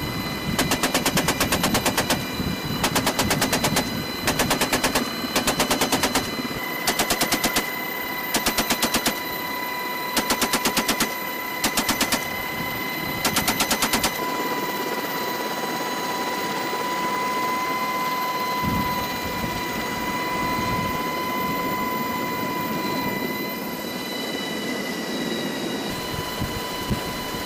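A .50-calibre GAU-18 machine gun fired in about ten short bursts from the open door of an HH-60 Pave Hawk helicopter, heard from inside the cabin. About fourteen seconds in the firing stops, leaving the helicopter's steady engine whine and rotor noise.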